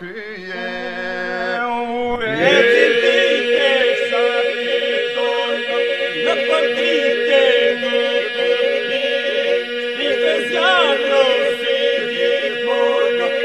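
Music: an Albanian folk song, voices singing a chant-like melody over a steady held drone, with a new phrase starting about two seconds in.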